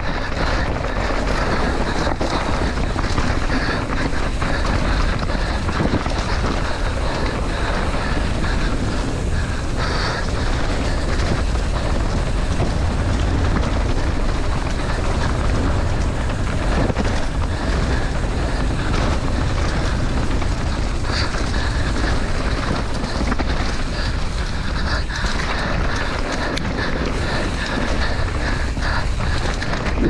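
Mountain bike running fast down a dirt trail: a steady rush of wind on the camera's microphone mixed with a constant rattle and knocking from the bike and its knobby tyres over the ground.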